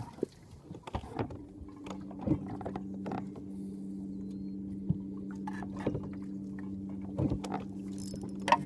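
A small electric motor starts about a second in and hums steadily at an even pitch, with scattered light knocks and clicks over it.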